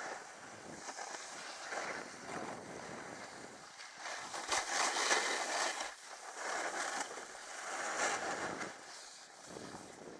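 Snowboard edge scraping across hard-packed snow through a series of turns, each turn a swell of hiss, the loudest about five seconds in, with wind noise on the microphone.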